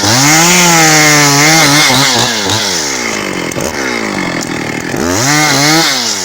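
Husqvarna 272XP two-stroke chainsaw with a 30-inch bar ripping a log lengthwise. The engine pitch repeatedly drops as the chain bogs in the cut and then climbs back, sagging longest a little past the middle before revving up again near the end.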